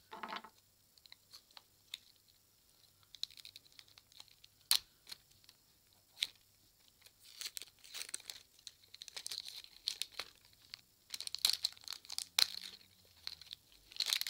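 Packaging being torn and rustled, with scattered sharp clicks and taps. It is sparse at first and busier from about halfway through, and busiest near the end.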